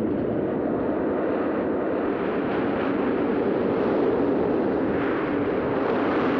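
Heavy storm surf breaking and churning against a rocky shore, a continuous rushing wash of water with a slight swell around the middle, heard on an old film soundtrack with no high treble.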